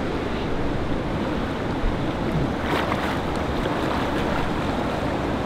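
Steady rush of fast river water running over a shallow riffle, with splashing about halfway through.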